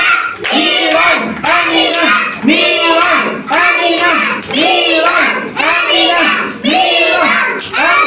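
A group of young children chanting two names over and over in a steady rhythm, about once a second, with hand-clapping among the voices.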